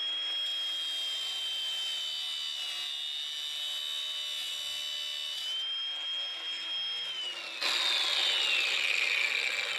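Angle grinder running at speed with a steady high whine, then biting into the metal of a broken engine thermostat near the end: the sound turns louder and harsher and the pitch falls as the disc cuts under load, opening the thermostat up for full coolant flow.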